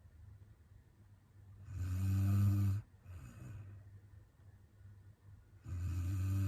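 A woman snoring in her sleep: two loud, low buzzing snores about four seconds apart, one about two seconds in and one near the end. A softer breath follows the first.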